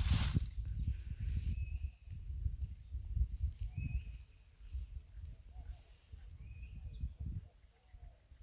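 Field crickets trilling steadily, a high pulsing chirp repeating about three times a second, with a few short bird chirps scattered through. An uneven low rumble runs underneath, and a brief loud rushing noise sounds right at the start.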